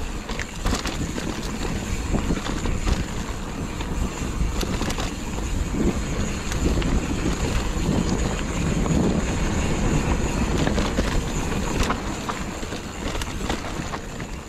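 Mountain bike riding down a bumpy dirt singletrack: steady wind rush on the camera's microphone, with the bike clattering in many small knocks as it rolls over the rough ground.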